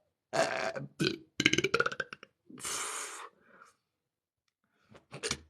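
A woman burping several times in quick succession while she has the hiccups, which she says make her want to burp. A breathy exhale follows, then a pause and two short sharp sounds near the end.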